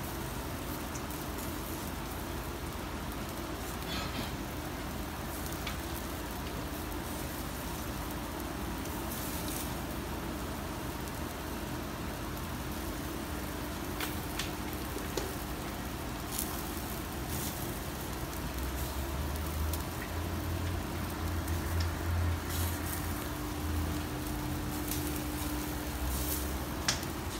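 Commercial gas grill burning under natural charcoal with yakitori skewers sizzling on the rack: a steady hiss with a faint hum, and scattered crackles and pops. A low rumble joins in the second half.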